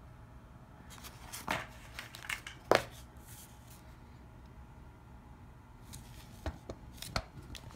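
Cardstock pouch being handled and folded open: scattered paper rustles and light clicks, with one sharper tap about three seconds in.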